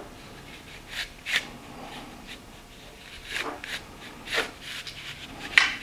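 Hands working a small engine's plastic recoil starter as the new starter rope is let wind slowly back onto the spring-loaded pulley: soft rubbing with several brief scrapes.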